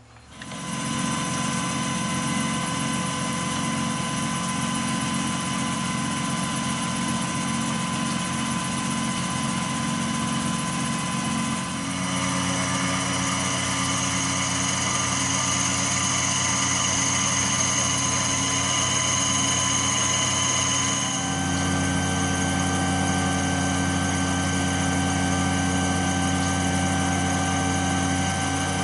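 CNC milling machine running steadily while shaving down the steel slide of a Smith & Wesson M&P 40 pistol, a whine of several held tones. The pitch of the whine shifts suddenly a little under halfway through and again about two-thirds through, as the machine moves on to another speed or cut.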